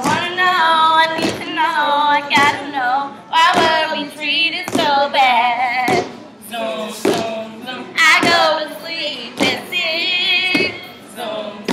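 Step team stomping in combat boots on a wooden dance floor, one heavy stomp about every second in a steady beat, with women's voices singing together over it.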